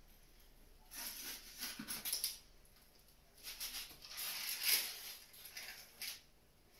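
Metal spatula scraping on a foil-lined baking tray, with the foil crinkling, in two spells of a second or so, then a light knock near the end.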